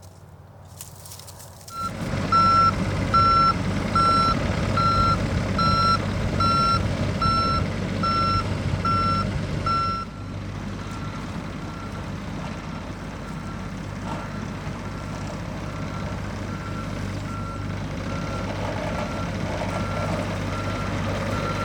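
John Deere 60G compact excavator's diesel engine running, with its travel alarm beeping a little over once a second. About two seconds in the engine noise starts up loud. About ten seconds in the engine and beeps drop in level, and the beeping goes on faintly.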